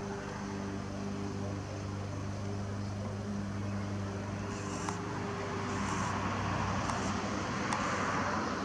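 A steady low motor hum, with a rushing noise that swells toward the end and a few faint clicks.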